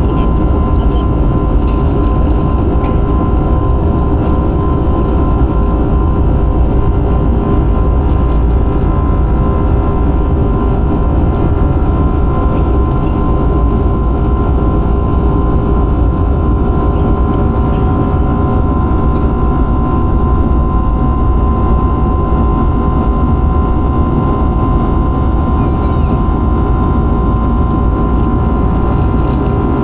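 Steady jet engine and airflow noise heard inside an airliner's passenger cabin, loud and unchanging, with a few steady hum tones over it.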